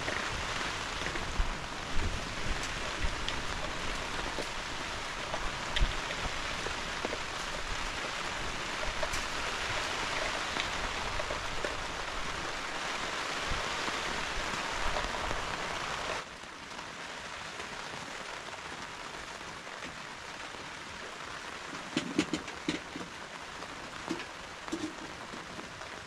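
Steady heavy rain falling. About sixteen seconds in the sound drops suddenly to a lighter, quieter rain with scattered sharp drop hits and a few louder knocks.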